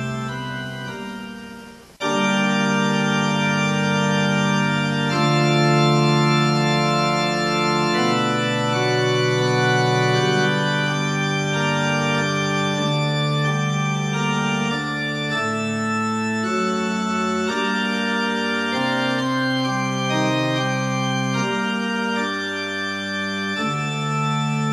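Organ music: slow, held chords that change every second or two, coming in suddenly about two seconds in after a fading ring.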